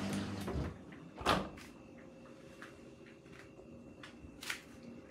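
Hotpoint WT960 washing machine's running hum dies away less than a second in. It is followed by a sharp clunk, scattered light clicks, a second smaller knock near the end, and a faint steady whine.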